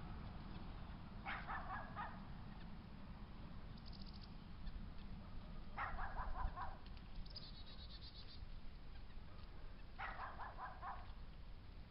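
An animal outdoors calls three times, about every four seconds, each call a quick run of several short notes. Faint high chirps come twice in between.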